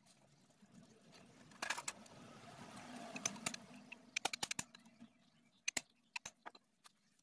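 Hand tool clicking and clinking against the opened engine case of a Honda Astrea Grand, in quick runs of small metallic clicks about four seconds in and again near the end. A rough rushing noise swells and fades partway through.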